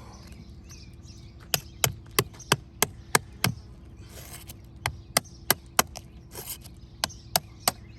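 Hammer striking sharply during roof shingle removal: a run of seven blows about three a second, then after a pause four more and, a moment later, three more.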